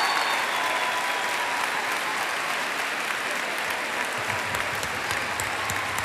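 Large concert audience applauding, a dense steady clapping that eases slightly as it goes on.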